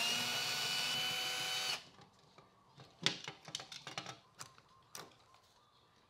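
Cordless drill-driver spinning up with a rising whine and running steadily for just under two seconds as it backs out a screw holding a thermostat's plastic base plate to the wall, then stopping. About a second later come scattered light clicks and taps as the plastic plate is pulled off the wall and the wires are fed through it.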